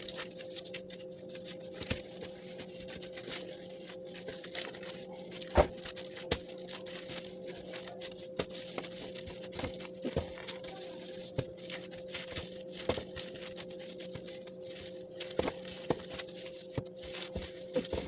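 Gloved hands kneading and shaping Spanish bread dough on a table: crinkling of the plastic gloves and irregular soft taps and thumps of the dough against the surface, with one sharper knock about five seconds in. A steady low hum runs underneath.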